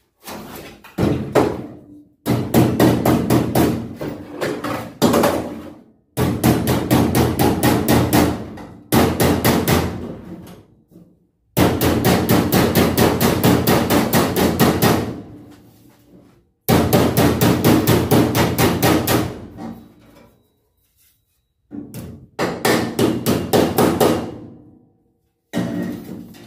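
Steel hammer striking the bent edge of a cold-rolled sheet-steel panel in fast runs of several blows a second, with short pauses between runs, the sheet ringing under the blows. The hammering tightens a freshly brake-bent 90-degree flange.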